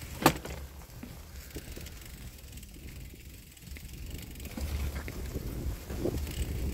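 Bicycle riding over a rough, rutted dirt track: a steady low rumble of wind on the microphone with small rattles and clicks from the bike, and one sharp knock about a quarter second in. The wind rumble grows stronger from about the middle on.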